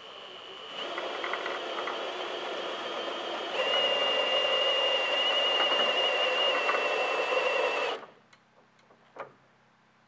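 Cordless drill driving the crank of a ceiling-mounted cable hoist, winding in the cable to lift a vehicle hardtop. The drill runs with a steady whine for about eight seconds, gets louder about three and a half seconds in, then stops abruptly.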